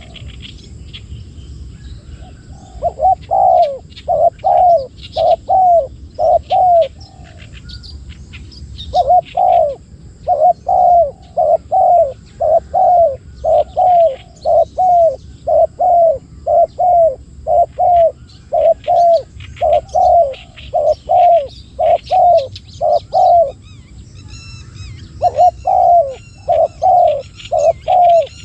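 Spotted doves cooing: a long series of short, falling coo notes, about one and a half a second, broken by two brief pauses. Small birds chirp faintly behind them.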